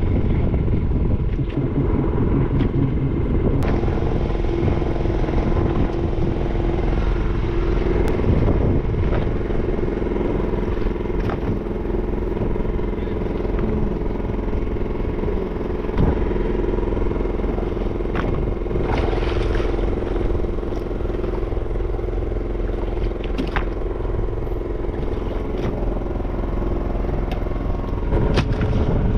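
An engine on a fishing boat running steadily, a constant drone with a hum in it, with occasional short knocks.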